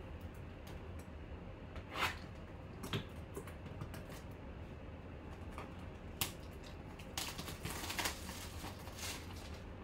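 Hands unwrapping and opening a cardboard baseball-card hobby box: scattered crinkles, crackles and clicks of packaging and cardboard. The handling is busiest about seven to eight seconds in.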